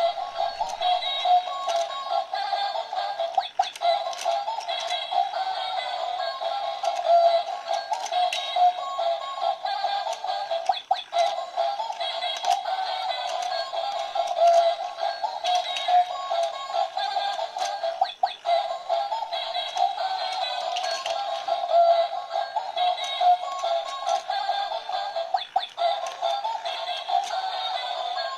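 Musical fishing-game toy playing its tinny electronic tune through a small built-in speaker, with scattered short plastic clicks and taps.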